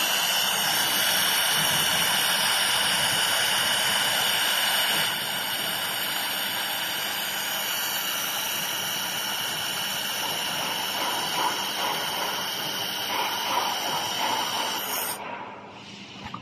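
A 4-in-1 laser welding machine running in a test, making a steady hiss with a high whine over it. The hiss drops a little about five seconds in and cuts off suddenly near the end.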